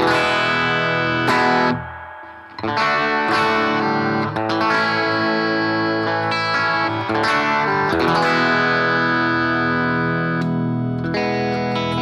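Electric guitar played through a BOSS GT-1000 Fender Twin-style amp model and Two Notes Cab M cabinet simulation with a compressor on, ringing chords and notes that change every second or two, with a short gap about two seconds in.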